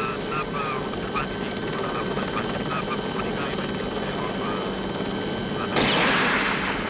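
A steady low drone runs throughout, with faint chirps in the first few seconds. About six seconds in comes a sudden loud rush of rustling reeds as someone pushes through them; it fades over about a second.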